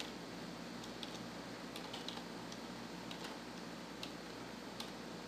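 Computer keyboard typing: scattered, irregular keystrokes, a few at a time, over a faint steady hum.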